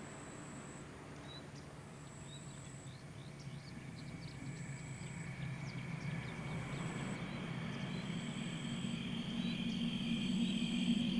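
Dusk riverside ambience: an insect's high, thin trill repeating about every two seconds, each lasting under a second, with scattered short bird chirps. A low drone swells and grows louder toward the end.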